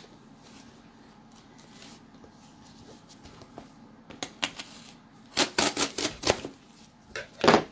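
Low room noise for about four seconds, then a run of sharp clacks and knocks from objects being handled on a table, loudest between about five and six and a half seconds in, with one more just before the end.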